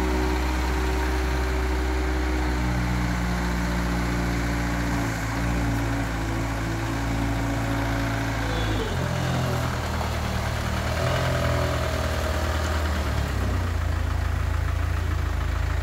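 Thaler KL 461/A mini loader's diesel engine running steadily. Its note shifts a few times, with a clear change a little past the middle, while the loader arm is raised and the machine is worked.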